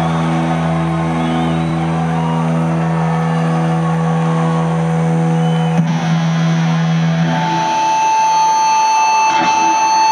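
Sustained droning chord through an arena PA, with a strong low held note, over crowd cheering and whistling. A higher steady tone comes in about seven and a half seconds in.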